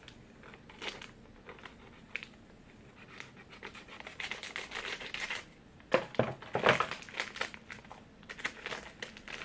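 Snack wrapper being cut and torn open by hand, crinkling and rustling in short bursts, loudest about six seconds in.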